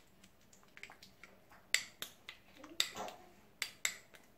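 Metal spoon clinking and scraping against a small glass bowl while stirring a thick cream, a few sharp clinks at uneven intervals.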